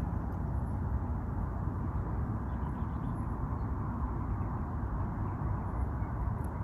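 Steady vehicle noise: an even, unbroken low hum and rush with no distinct events.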